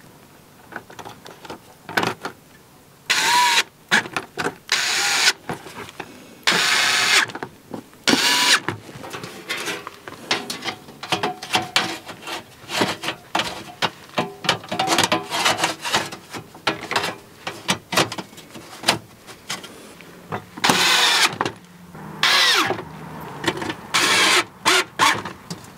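Undercarriage splash shield being refitted beneath a car: a series of short scraping, rattling bursts as the panel is handled and fastened into place.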